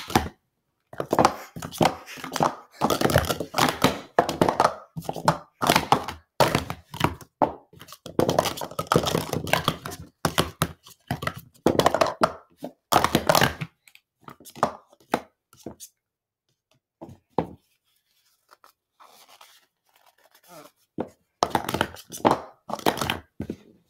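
Plastic sport stacking cups being stacked up and down at speed in a 9 cycle. A dense run of quick clacks of cups knocking together and on the table lasts about thirteen seconds, then scattered clacks follow, and there is another quick run near the end.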